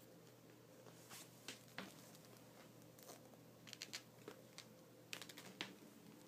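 Faint, irregular scratches and clicks of a kitten's claws catching on ribbed trouser fabric as it climbs, coming in small clusters over a low steady hum.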